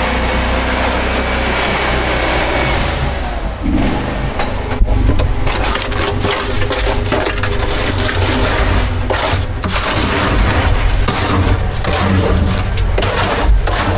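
Concrete mixer truck's engine running, with a steady hum throughout. From about four seconds in come gritty scraping and irregular clattering knocks of concrete being scraped down the truck's chute.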